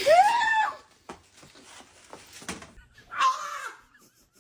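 A person's startled scream, loud, rising and then falling in pitch, for about a second. A second, shorter cry follows about three seconds in.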